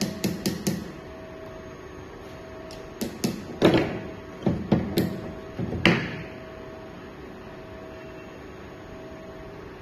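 Hand tools and impact-wrench parts working on a workbench: a quick run of light metal clicks, then several scattered metal knocks and clatter, the last and loudest ringing briefly. A faint steady hum runs underneath.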